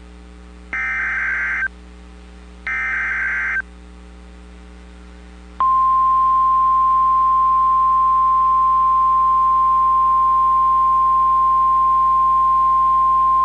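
NOAA Weather Radio Emergency Alert System signal: the last two of the three SAME header data bursts that open a new alert, each about a second long, then after a short pause the steady 1050 Hz warning alarm tone, starting about five and a half seconds in and holding on. A low steady hum from the radio reception runs underneath.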